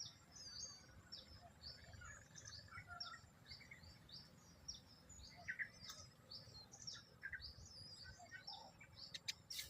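Birds chirping: a rapid, continuous series of short, high, downward-sliding chirps, about three or four a second, with a few lower chirps among them. A couple of sharp clicks near the end.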